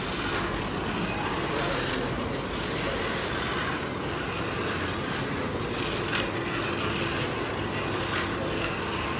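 Line-following robot's small geared DC motors, 900 RPM ones, whirring steadily as it drives the track, over faint chatter in the hall. A few faint clicks in the second half.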